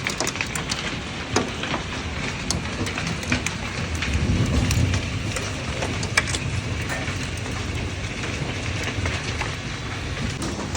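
Heavy rain pouring down, with many sharp drops tapping throughout. A low rumble swells briefly about four seconds in.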